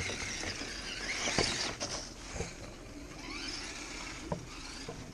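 Axial SCX10 Deadbolt RC crawler's stock 27-turn brushed motor and geartrain whining as it is driven, the pitch rising and falling with the throttle, with a few sharp clicks.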